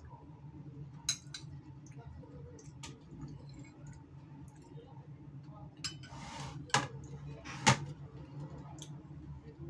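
Metal spoon and fork clinking and scraping against a ceramic plate while eating. There are a few scattered sharp clinks, the two loudest near the end, and a short scrape just before them, over a low steady hum.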